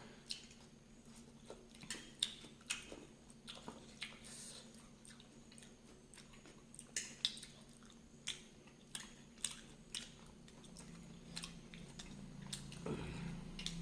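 Close-up chewing of hot chillies: irregular wet crunches and mouth clicks, one or two a second.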